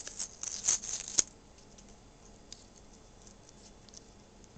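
Hands handling a pair of earbuds and their packaging: a quick run of crinkling and clicking for about the first second, then only a few faint ticks.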